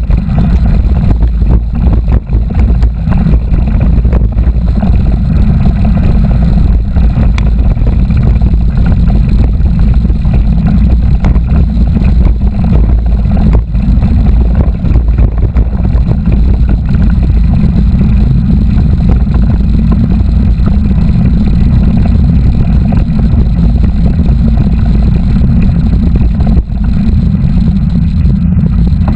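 Steady, loud wind rumble on the microphone while riding a mountain bike, with a rough, even noise of riding underneath.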